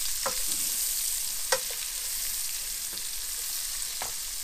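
Sliced onions and mushrooms sizzling in oil and butter in a frying pan, stirred with a wooden spoon. The spoon clicks against the pan a few times, the sharpest about one and a half seconds in.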